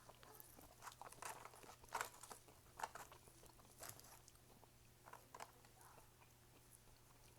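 A person chewing fast food close to the microphone: faint, irregular crunches and mouth clicks, the sharpest about two and three seconds in, thinning out near the end.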